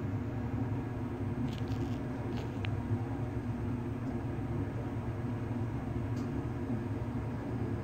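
Steady low machine hum, unchanging throughout, with a few faint light ticks about one and a half to two and a half seconds in and once more near six seconds.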